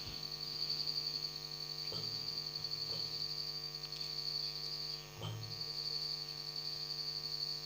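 Steady electrical hum with a continuous high-pitched whine, and a few faint knocks as the microscope is handled and set down.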